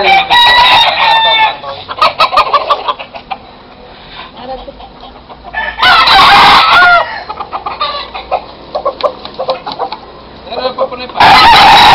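Gamecocks crowing: three long crows, one at the start, one about six seconds in and one near the end, with shorter clucks and calls in between.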